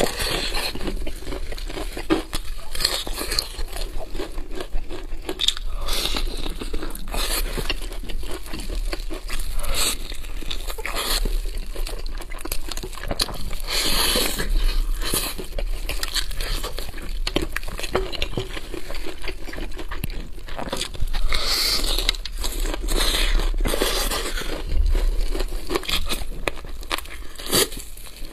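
Crunching and chewing of crispy fried chicken coating, with repeated bites and meat being pulled apart, in many irregular crackly strikes.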